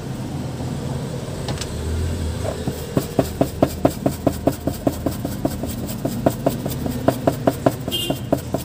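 A brush scrubbing thinner over the solder side of a circuit board: quick back-and-forth strokes, about five a second, starting about two and a half seconds in.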